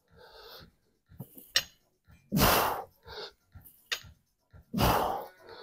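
A man breathing hard and forcefully through seated barbell curls: two loud, sharp breaths about two and a half seconds apart, with softer breaths between. A couple of faint sharp clicks come in between, likely from the bar.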